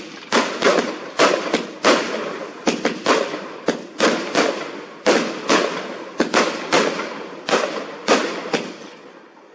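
A multi-shot firework cake firing a rapid barrage: about two dozen sharp bangs, two to three a second, each trailing off in a crackle, then stopping near the end.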